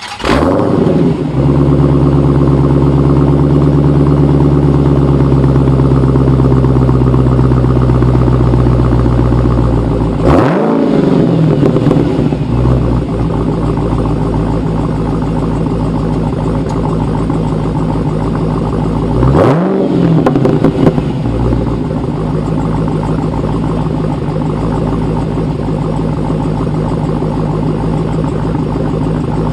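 V8 car engine running steadily, blipped twice: a quick rev up and back down about ten seconds in and again near twenty seconds.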